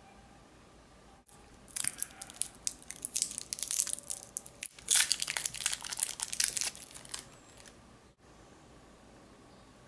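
A soft caramel's clear plastic wrapper crinkling and crackling as it is pulled and twisted open by hand, in two bouts of rapid crackles.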